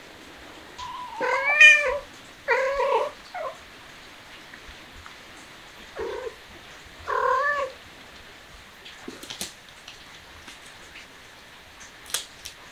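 A cat meowing four times, in two pairs a few seconds apart. A few faint clicks follow near the end.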